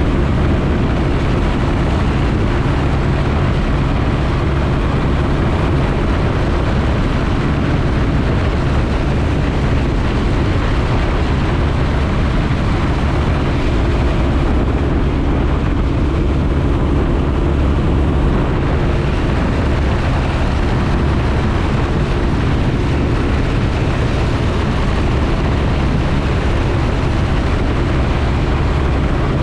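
Piper J-3 Cub's engine and propeller running at a steady, unchanging speed in flight, a loud even drone heard from the cockpit.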